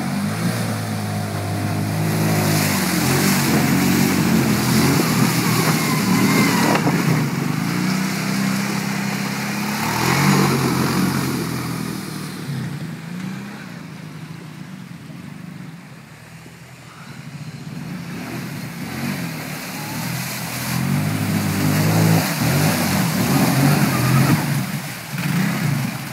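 Quad bike (ATV) engines revving and falling back as they drive through a shallow stream, with water splashing around the wheels. The engine sound dies down after about twelve seconds and builds up again about halfway through as another quad comes through.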